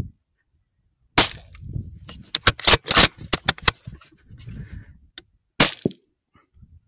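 Rifle shots: a loud sharp crack about a second in, then a rapid string of sharp cracks over the next couple of seconds, and a second loud shot near the end.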